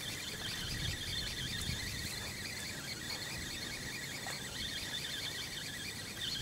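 Insects chirring: a rapid, even, high-pitched pulsing that runs on steadily, over a light rumble of wind.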